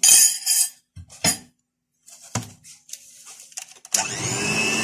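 A few short knocks and rustles of handling at a glass mixing bowl. Then, about four seconds in, an electric hand mixer switches on and runs steadily on low speed, beating powdered sugar into an egg and butter batter.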